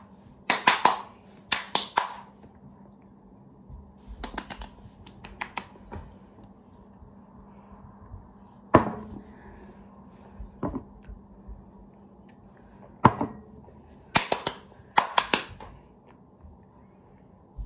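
Sharp hand claps in short runs of two to four, with single knocks between them and a faint hum.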